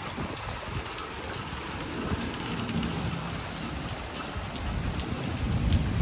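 Rain falling in a summer storm, hitting the ground and roof. A low rumble lies underneath and swells near the end.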